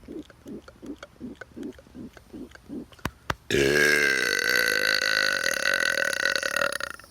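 A man's long, loud burp lasting about three and a half seconds, starting halfway through. Before it come soft rhythmic pulses, about three a second, and two sharp clicks.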